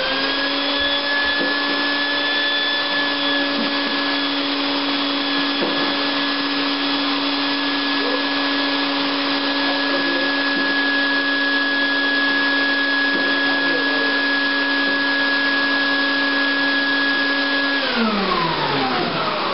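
Shop vac running at a steady whine while vacuuming out a fridge. About 18 seconds in it is switched off and the motor winds down, its pitch falling away.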